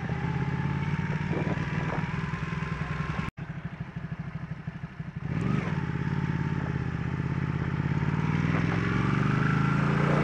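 Sport motorcycle engine running at low speed, picked up by a mic on the bike, with a sudden brief dropout about three seconds in and a quieter stretch after it. Near the end the engine note rises as the bike picks up speed.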